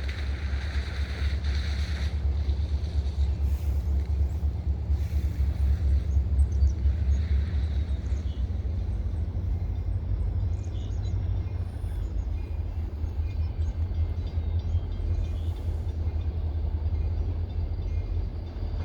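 Freight train rolling through a grade crossing: a steady low rumble of the cars' wheels on the rails that keeps up throughout.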